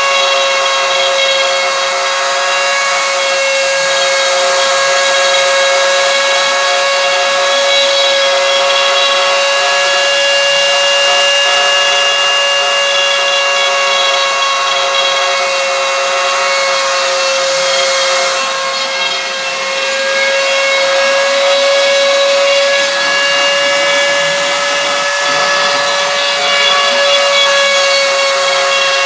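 CNC machine running steadily: a constant high whine with several overtones and a rough, rasping hiss over it.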